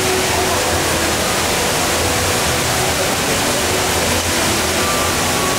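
The HSBC Rain Vortex indoor waterfall: a loud, steady rush of falling water pouring down into its pool.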